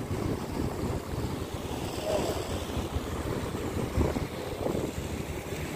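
Wind buffeting the microphone over small waves washing onto the shore, with a jet ski's engine running out on the water.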